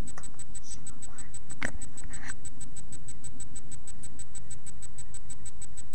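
A steady low hum with a fast, even ticking about ten times a second, and a couple of brief squeaky sounds about a second and a half and two seconds in.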